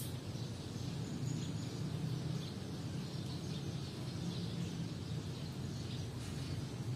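Outdoor background noise: a steady low hum with faint, scattered bird chirps.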